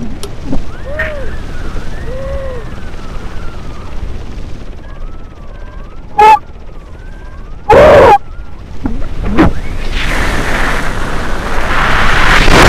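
Air rushing over the microphone of a paramotor pilot spinning through a SAT manoeuvre, with whistling tones that rise and fall. Two short, very loud buffets come about six and eight seconds in, and the rush builds steadily over the last few seconds.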